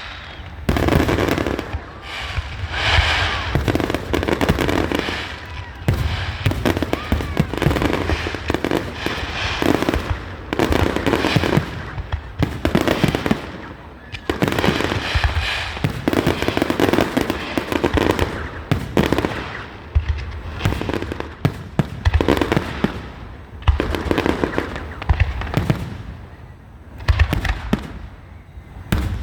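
Fireworks display: shells bursting in quick succession, booms and crackling, with a few short lulls.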